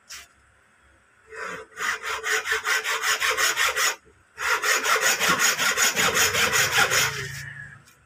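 Carbon brush of a backhoe starter motor being filed down, quick back-and-forth strokes at about five a second in two runs with a short break about four seconds in; the brush is being shortened so it won't touch and ground against the housing.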